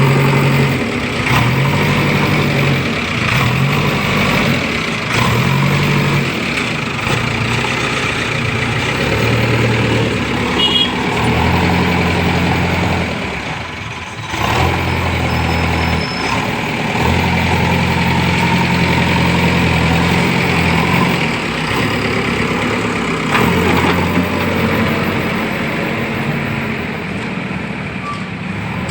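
Diesel engine of a JCB construction machine running under changing load, its pitch stepping up and down about once a second at first, then holding steadier for several seconds at a time.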